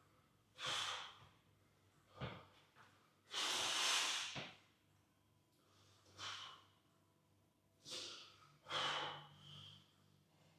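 A man breathing heavily close to the microphone: about six separate breaths or forceful exhales a second or two apart, the longest lasting about a second.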